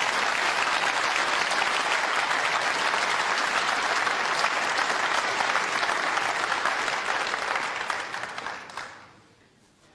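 Audience applauding, a steady clapping that dies away about nine seconds in.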